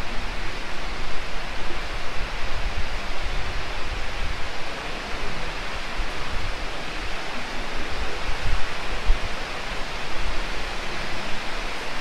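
Steady rushing of water moving along the boat ride's flume channel, with uneven low rumbles underneath.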